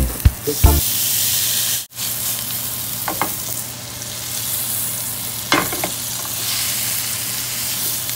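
Ribeye steak sizzling steadily in a hot grill pan, with a few short clicks and scrapes of a spatula against the pan as the steak is turned and pressed.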